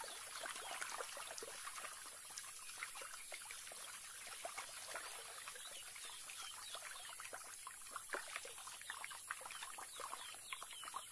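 Faint, steady water sounds from a shallow pool: a dense crackle of tiny trickles, drips and splashes.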